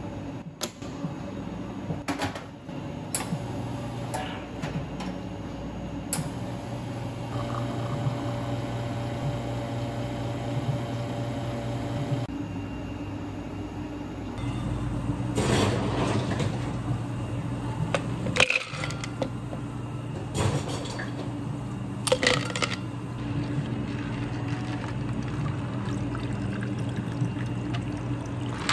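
Espresso-bar work: knocks and clicks of a portafilter being tamped and handled, then a commercial espresso machine's pump running steadily for several seconds while a shot is pulled. In the second half, water and ice being poured into a tall glass, with splashing and cracking ice in several bursts.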